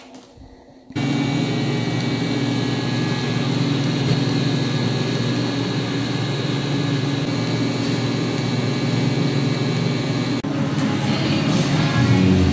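TIG welder arc on steel subframe plates, a steady electric buzz that starts suddenly about a second in and breaks off briefly near the end.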